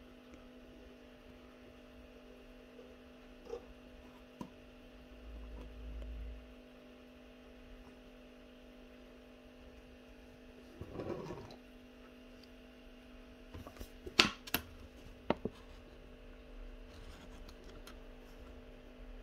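A steady low hum, broken by a few sharp clicks and knocks. Around the middle there is a short rough noise. The loudest part is a quick cluster of sharp knocks later on.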